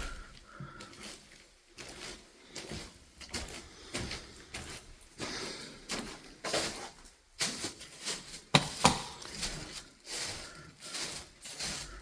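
Irregular footsteps and knocks inside an empty house, getting louder from about halfway through.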